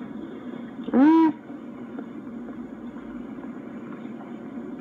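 One short vocal sound that rises and falls in pitch, like a brief 'ooh', about a second in, over a steady low hum.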